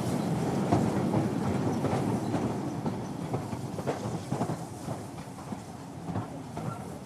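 Train running on the rails: a steady low rumble with irregular clicks and knocks of the wheels over rail joints, slowly getting quieter.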